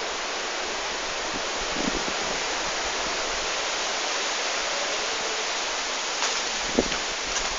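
Heavy rain falling steadily on trees and garden foliage, an even hiss, with a few light taps of drops near the end.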